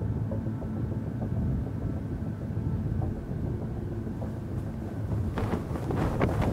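Wind buffeting the microphone: a steady low rumble, with a run of sharp crackles in the last second.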